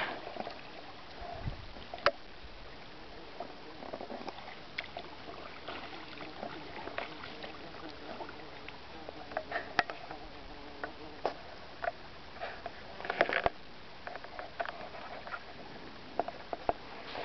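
Quiet river water lapping and splashing around a small floating craft, with scattered light clicks and small splashes.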